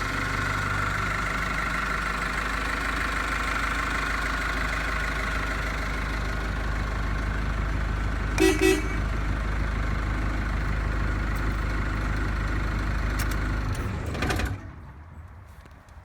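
Mitsubishi J53 Jeep's four-cylinder turbo diesel idling steadily just after a cold crank-up. About halfway through the horn gives two short toots. The engine is switched off near the end and stops abruptly.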